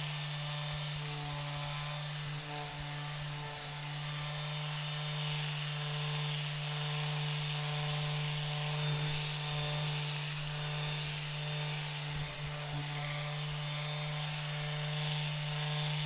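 Handheld rapid release therapy vibration device buzzing steadily as it vibrates very fast against a person's back. It makes a constant low hum with a thin hiss above, slightly muffled by the body.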